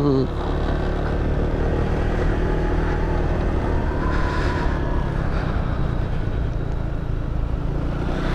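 Motorcycle engine running steadily at riding speed, a low even drone mixed with wind and road noise on a helmet-mounted microphone; the noise swells briefly about four seconds in.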